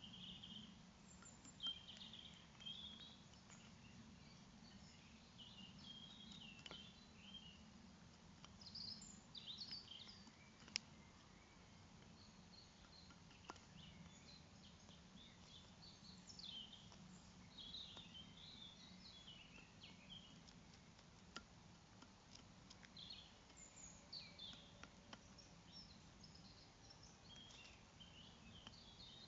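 Small songbirds chirping and twittering faintly in short, scattered phrases over a low steady hum, with a few soft clicks.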